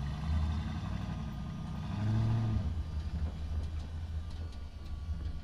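Truck engine driving through a parking structure: it revs up twice, the second time loudest about two seconds in, then drops back to a steady low running.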